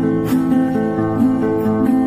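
Background music: a guitar-led instrumental with steady note changes.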